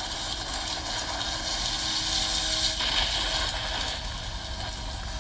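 Steady engine-room machinery noise: a constant hiss with a low rumble underneath, with no distinct strikes or clicks.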